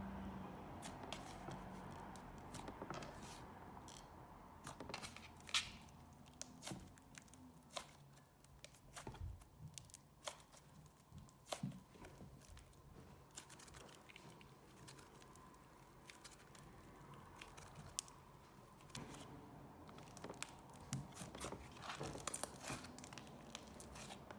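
Thick clay slime being handled, giving faint, scattered sticky clicks and crackles with quiet gaps between them, growing busier near the end.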